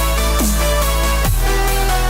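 Electronic dance music with deep sliding bass notes and a steady beat.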